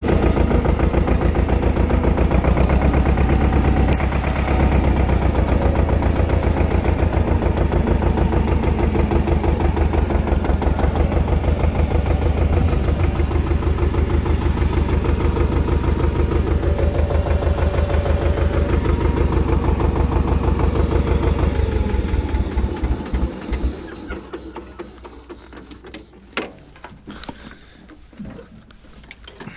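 Pasquali compact tractor's engine running loudly with a steady, rapid pulse, then shut off about 22 seconds in and winding down to a stop. A few sharp clicks follow near the end.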